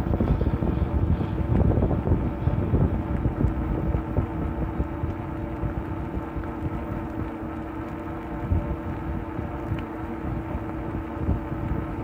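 Wind buffeting the microphone on a moving e-bike, with a steady hum from the bike under it.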